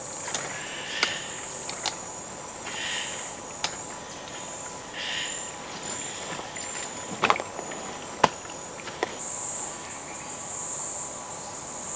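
Rainforest insect chorus trilling steadily at a high pitch, with a few short mid-pitched calls and several sharp clicks, the loudest about seven and eight seconds in. The insect sound changes and grows louder about nine seconds in.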